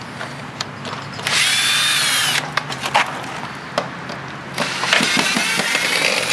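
Power drill running in two spells of about a second each, a high whine as it backs screws out of an aluminum table, with clicks and knocks of metal parts between the spells.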